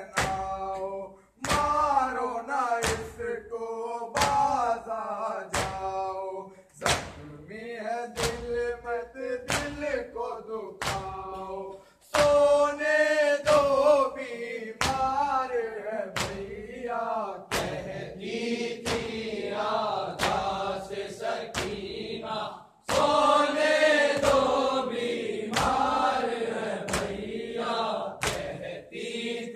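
A group of men's voices chanting a Urdu noha, a Shia lament, in unison, over regular sharp strikes of matam (hands beating on chests) that keep the beat about once or twice a second. The singing and the strikes break off briefly twice.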